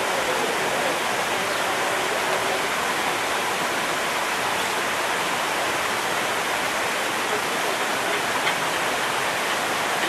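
Steady rush of falling water from an animal-habitat waterfall.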